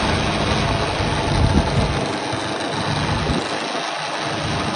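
KTM Adventure's single-cylinder engine running while the black plastic fairing flaps beside the headlight rattle, a vibration rattle from loose panels. The deep rumble fades out about two thirds of the way through.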